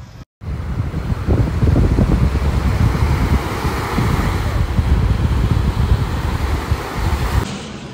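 Wind buffeting a phone microphone over small waves breaking and washing up on a sandy shore. It starts after a brief dropout about half a second in and stops shortly before the end.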